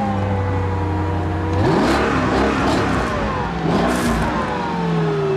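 Mercedes-Benz CL500's V8 engine running just after starting, idling and revved twice, about two seconds apart.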